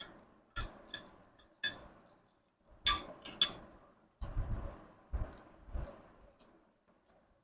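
Metal burner parts and pan supports being set onto a gas hob's toughened-glass top: a string of light clinks and knocks, the loudest two about three seconds in.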